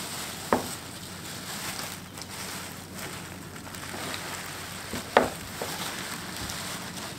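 Plastic bags rustling and crinkling as they are handled and pulled open, with two sharper crackles, one about half a second in and one about five seconds in.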